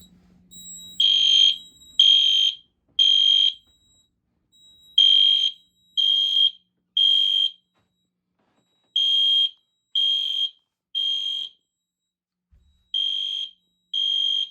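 Fire alarm system sounder beeping a loud, high-pitched tone in the temporal-three evacuation pattern: three short beeps, a pause, then three again, repeating. The system is in alarm, tripped by smoke at a smoke detector.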